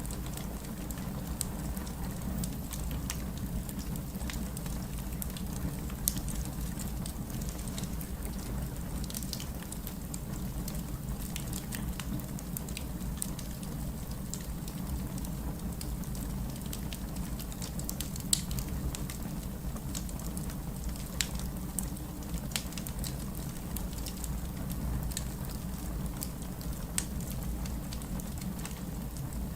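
Fireplace crackling: scattered sharp pops and snaps over a steady low rumble.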